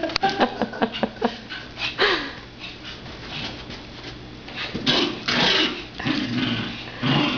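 A puppy and a small terrier playing, giving a quick run of short yips and barks, then a falling whine about two seconds in, with rough noisy bursts of play-growling around five seconds in and near the end.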